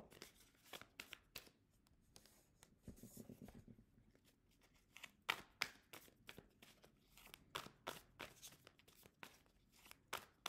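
Faint, scattered flicks and clicks of a tarot deck being shuffled by hand, with cards tapped and set down on a hard tabletop; the clicks thin out for a couple of seconds and come thicker again in the second half.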